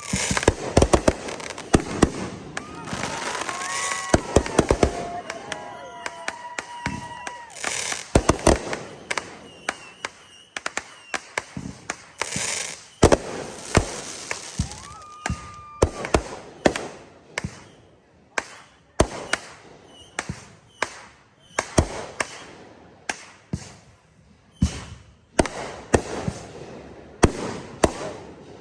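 Fireworks display of aerial shells and 500-gram cakes: a rapid, uneven run of sharp bangs with crackling between them, densest in the first half and thinning to spaced single reports toward the end.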